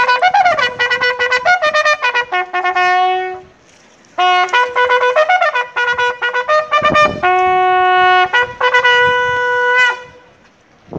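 A bugle call sounded as a salute for a guard of honour: two phrases of held and quick notes, with a short break about three and a half seconds in.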